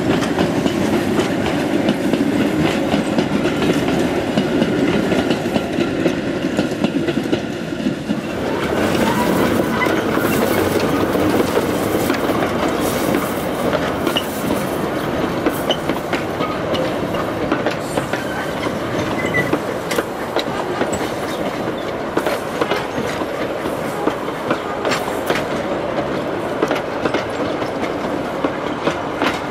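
Steam-hauled narrow-gauge train of wooden coaches and vans rolling past close by, its wheels clicking and clattering over the rail joints. The sound changes abruptly about eight seconds in to a nearer, brighter clatter.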